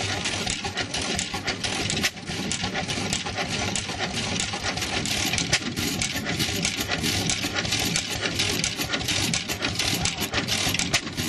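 Antique hopper-cooled single-cylinder stationary gas engine running, with a rapid, continuous metallic clicking and clatter over a low rumble.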